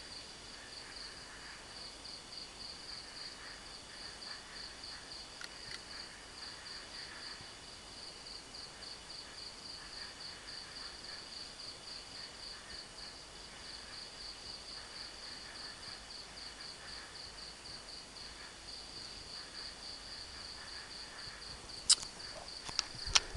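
Night crickets chirping steadily, a high pulsing trill at about four pulses a second, with a fainter, patchy insect call lower down. A couple of sharp clicks sound near the end.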